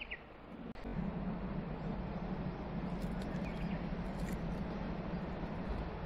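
A train approaching on the line, a steady low rumble that sets in about a second in and holds, with a faint bird chirp or two over it.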